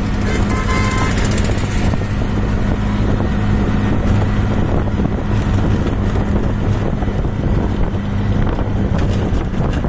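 Auto-rickshaw engine running steadily while the three-wheeler drives along, heard from inside the cab as a steady low hum mixed with road and wind noise.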